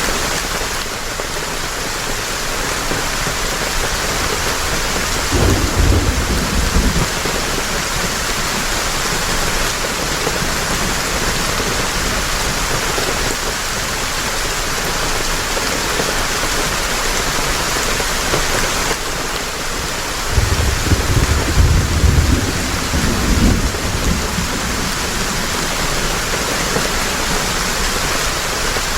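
Heavy rain falling steadily, with two low rolls of thunder: a short one about five seconds in and a longer one a few seconds past the middle.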